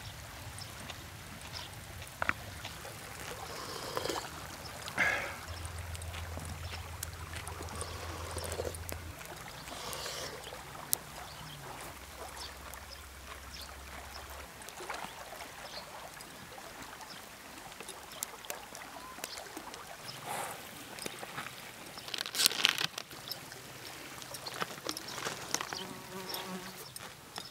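Light taps and clatter of wooden utensils and food being handled around a pot of hot pot soup cooking over a wood fire, scattered through, with a louder burst of clatter about 22 seconds in.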